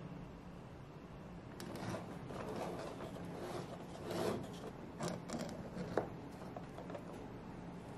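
Metal cake spatulas scraping and sliding across a plastic cake turntable as they are worked under a frosted cake, a rasping, uneven scrape from about a second and a half in, ending with one sharp click about three quarters of the way through.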